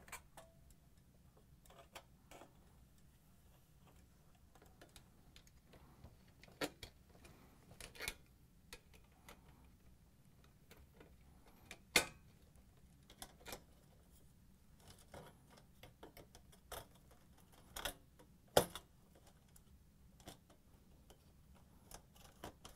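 Faint, irregular clicks and light metallic scrapes of a flat-blade screwdriver and needle-nose pliers prying and bending open the aluminium tabs that hold the defrost heater to a refrigerator evaporator. The sharpest clicks come about halfway through and again a few seconds later.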